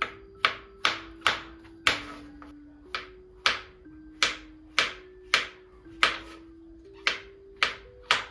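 Knife chopping on a cutting board: about fourteen sharp strokes at an uneven pace of roughly two a second, with soft background music of slow held notes underneath.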